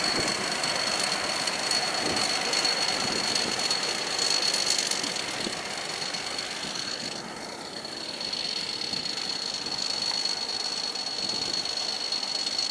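Combine harvester running hard while it unloads rice, a steady mechanical roar with a thin, steady high-pitched whine over it. The roar drops briefly about halfway through, then picks up again.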